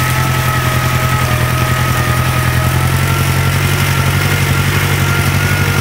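Engine of a farm vehicle running steadily at a low, even speed, a continuous hum.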